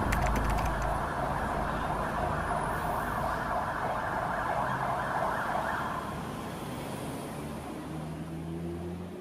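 The film's soundtrack fading out: a dark, hum-like drone with a noisy upper layer that dies away about six seconds in, and a faint tone gliding up near the end.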